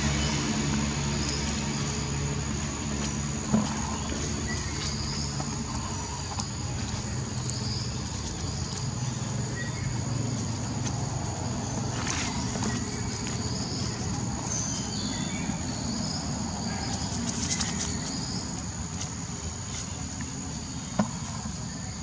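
Outdoor ambience: a steady high-pitched insect drone over a low steady rumble, with scattered faint short chirps throughout and a couple of light clicks.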